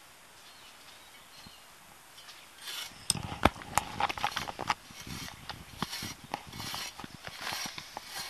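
Hand excavation tool scraping and clicking in soil. After a quiet start, a busy run of sharp clicks and short scrapes begins about three seconds in and continues.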